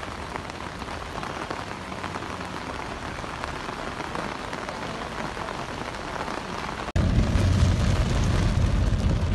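Heavy rain pouring down, a steady hiss. About seven seconds in it cuts suddenly to a louder downpour with a deep low rumble, rain on a car windscreen.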